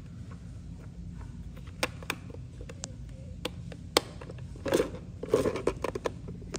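Small plastic toy vending machine being handled and turned over: a handful of sharp plastic clicks and taps, then a couple of brief scraping rubs of plastic against plastic and the counter.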